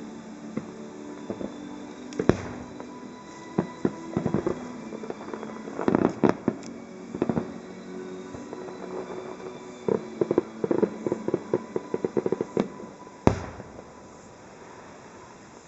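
Fireworks display: aerial shells bursting with sharp bangs at irregular intervals. There is a loud bang a couple of seconds in and another near the end, with quick runs of popping reports in between, densest about two-thirds through.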